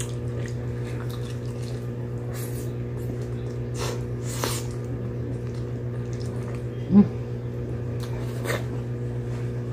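Close-miked eating sounds: a person biting and chewing food taken by hand, with scattered wet mouth clicks and smacks. There is a short loud low thump about seven seconds in, over a steady low hum.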